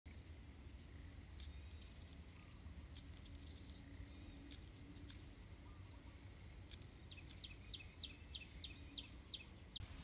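Faint insect ambience: a steady high-pitched buzz with repeating pulsed cricket trills. From about seven seconds in, a quick run of short high chirps joins it, over a low rumble.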